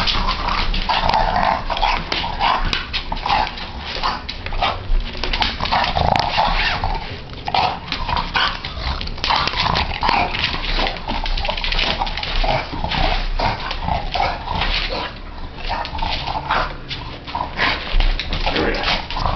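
A French bulldog making short repeated dog sounds as it bites and pushes a whole watermelon around a hard floor, with many scuffs and knocks throughout.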